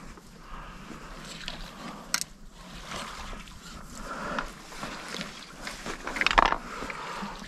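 Shallow marsh water sloshing and splashing, with rustling of gear and brush as a wader-clad hunter shifts position. There is a sharp click a couple of seconds in, and the loudest rustle comes near the end.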